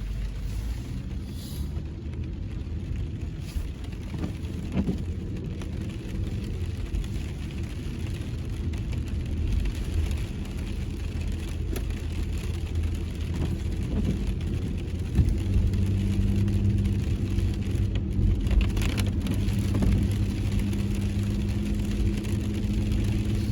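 Car driving, heard from inside the cabin: a steady low road rumble, with a constant engine hum that comes in about two-thirds of the way through.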